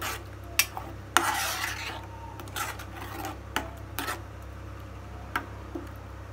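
Steel spoon stirring a watery gravy in a pan, scraping along the bottom and clinking against the sides in irregular strokes, with the longest scrape about a second in.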